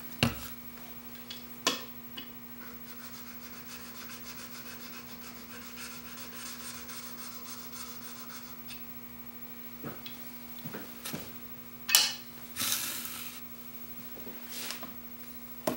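Steel chisel bevel, held in a honing jig, rubbed back and forth on a fine DMT diamond sharpening plate: a faint, steady scraping. Near the end, a sharp knock and a brief hiss.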